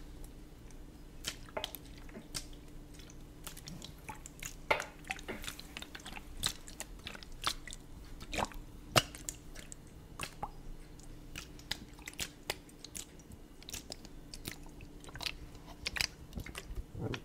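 Irregular small clicks and crackles of a plastic trigger spray bottle being handled and tilted close to the microphone, faint and scattered with no steady rhythm.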